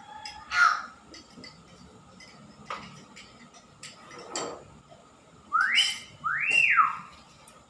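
Caged myna calling loudly. It gives a sharp call about half a second in and a few shorter calls, then near the end two whistles close together, the first rising and the second rising then falling.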